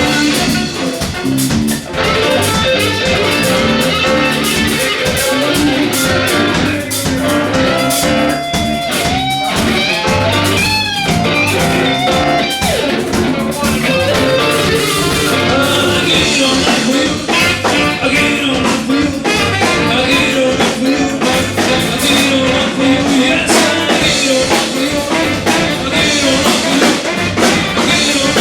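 Live band playing an instrumental passage, with guitar over a drum kit.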